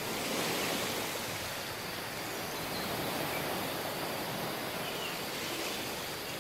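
Surf washing onto a tropical beach: a steady wash of waves that swells gently a couple of times, with a few faint, short high chirps over it.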